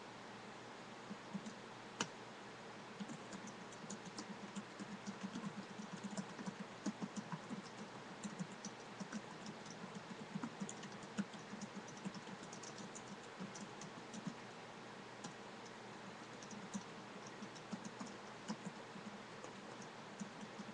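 Typing on a computer keyboard: irregular runs of quick keystrokes over a steady background hiss, with one sharper, louder click about two seconds in.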